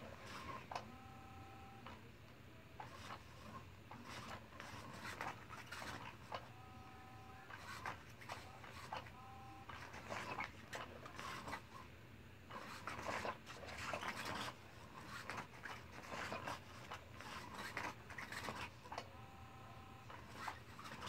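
Small electric motor of a battery-powered cat toy whirring in four short spells of about a second each, as its wand sweeps under the fabric cover. Between them, fabric rustling and soft taps as a kitten paws at the cover.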